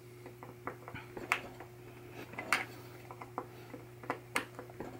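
Scattered small clicks and taps of tools and parts being handled while a pinball pop bumper switch is adjusted, three of them louder, over a steady low hum.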